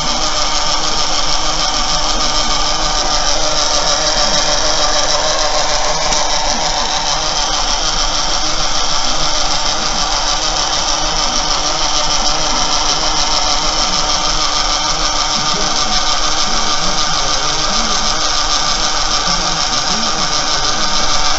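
Small electric motor of a homemade model locomotive running steadily, turning its plastic wheels through wooden-stick connecting rods, with a constant mechanical buzz.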